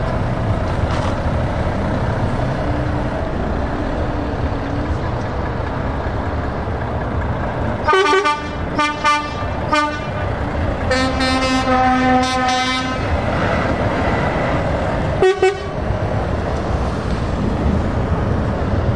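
Heavy truck engines running as lorries pull away, with a truck horn sounding: a quick run of short toots about eight seconds in, a longer held blast of about two seconds, then one more short toot.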